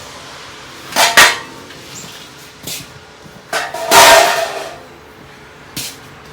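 A few sharp metallic clanks and knocks of tools and parts being handled. Two come about a second in, and the loudest comes about four seconds in with a brief ring.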